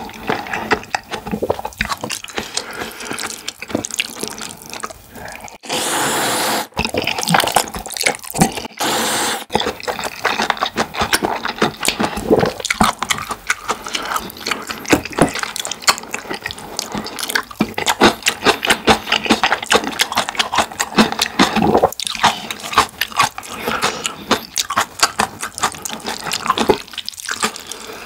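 Close-miked eating of jjajang (black bean sauce) noodles and rice: dense, irregular wet chewing and mouth clicks, with two louder sounds about a second long near six and eight seconds in.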